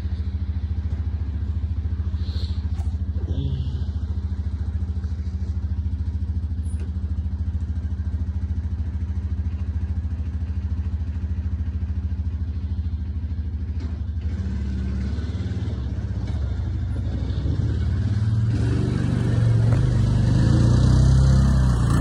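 Four-wheeler (ATV) engine running at a steady low speed with the snow plow attached, then revving up and growing louder over the last few seconds.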